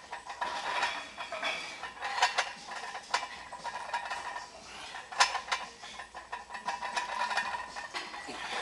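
Irregular sharp metallic clinks and clanks of barbell weight plates during a set of heavy back squats.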